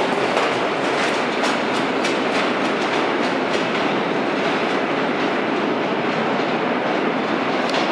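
Vintage R1/R4/R7/R9 "Arnine" subway train running through an underground station: a steady loud rumble with wheels clacking over rail joints about two to three times a second. The clacks thin out about four seconds in as the last car passes and the train heads into the tunnel.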